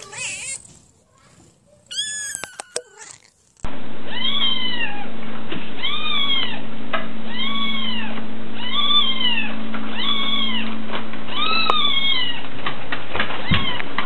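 Kittens mewing in high, thin, rising-and-falling calls: a couple of mews in the first few seconds, then, after about three and a half seconds, another kitten mewing over and over, about one mew a second, over a steady low hum.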